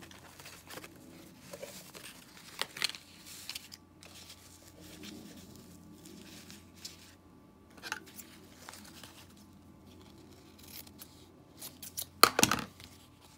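Thick fabric ribbon rustling and brushing as hands work it into a knot, with scattered soft clicks of handling. A louder cluster of sharp rustles comes near the end.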